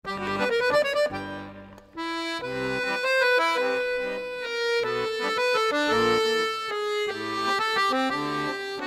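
Music: a quick melody of held, changing notes over a bass line, fading briefly about a second in and coming back strongly at two seconds.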